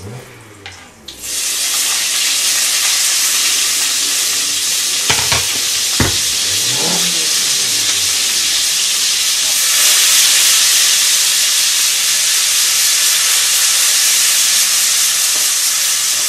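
Chopped onions going into hot oil in a frying pan: a loud sizzle starts suddenly about a second in and holds steady as they fry and are stirred. Two sharp knocks of the utensil against the pan come near the middle.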